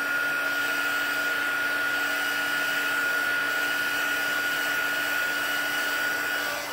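Handheld craft heat tool running, a steady rush of blown air with a constant high whine, drying stamped ink on a card.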